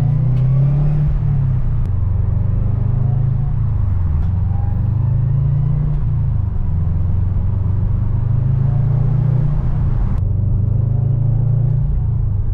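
2011 Subaru WRX's turbocharged flat-four engine pulling through the gears: its drone climbs in pitch, then drops at each of three gear changes. The stock bypass valve gives a tiny psh as the throttle lifts.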